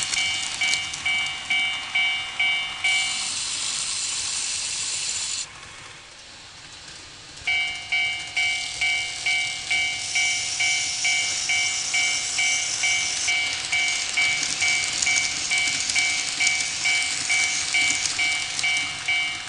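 Tomix N-gauge automatic level crossing's electronic warning bell dinging about twice a second, over a steady high hiss. The bell stops about three seconds in, the hiss cuts off a couple of seconds later, and after a quieter lull the bell starts again about seven and a half seconds in and keeps going.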